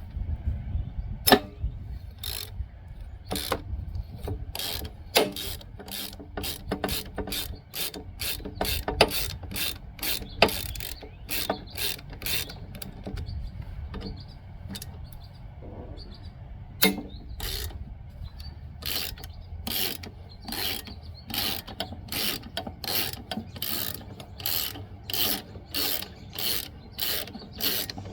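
Socket ratchet clicking in runs of about two to three clicks a second as it works out the 3/8-inch hex-head bolts on the mower's belt bracket, with a few sharper knocks in between.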